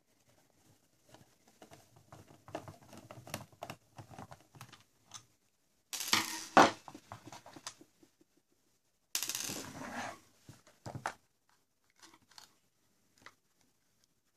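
Plastic cordless-drill battery pack being taken apart by hand: scattered clicks and rattles of the case, with two louder scraping, tearing stretches of about a second each, about six and nine seconds in, and a sharp snap in the first of them.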